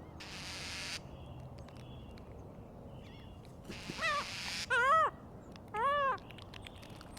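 A large bird gives a short series of loud calls, each rising and falling in pitch, a little over halfway through. A brief rush of noise comes near the start.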